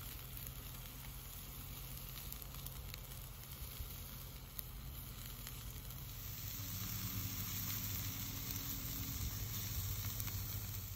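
Marinated steak sizzling on the grate over hot charcoal in a kettle grill: a steady hiss with small crackles that gets a little louder about six seconds in.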